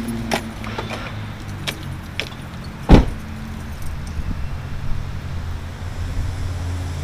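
Car interior at slow driving speed: a steady low engine and road hum, light clicks and rattles, and one loud thump about three seconds in.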